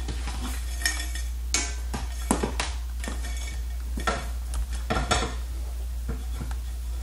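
Black metal floor-lamp pole sections being handled and fitted together on a wooden workbench: a scattered series of light metallic clinks and knocks as one tube is picked up and brought against the other. A steady low hum runs underneath.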